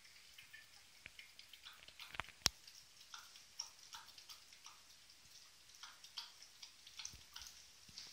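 Dog eating dry kibble from a bowl: a scattering of faint, irregular clicks and crunches, with one sharper click about two and a half seconds in.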